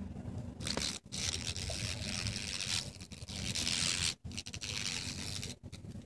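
Oriental hornet beating its wings while spinning on its side against a wooden plank, a raspy scraping buzz that stops and starts several times. The hornet's nervous system has been hit by pesticide.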